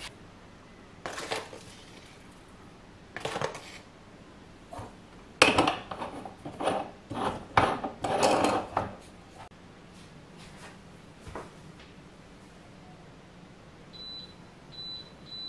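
Clinks, knocks and scrapes of an aluminium moka pot being handled and screwed together on a stone countertop, loudest in the middle. Near the end come three short electronic beeps from the induction hob's touch controls as it is switched on.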